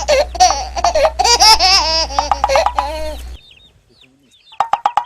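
High-pitched, cartoon-style laughter in quick, bouncing syllables that stops about three and a half seconds in; near the end a short rapid run of high notes follows.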